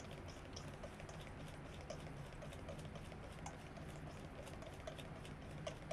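Wire whisk beating egg yolks and mustard in a bowl while oil is drizzled in to form a mayonnaise emulsion: faint, quick, irregular ticking of the wires against the bowl and a soft wet patter.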